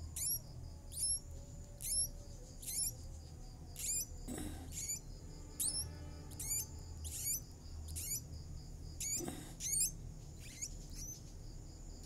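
Nestling birds begging for food: short, high, thin squeaking chirps repeated roughly once a second. A couple of faint rustles come from handling in the nest.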